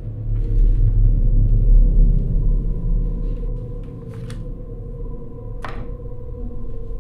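Deep rumbling soundtrack drone that swells over the first two seconds and then eases off, under a faint steady high hum, with a short sharp hiss near the end.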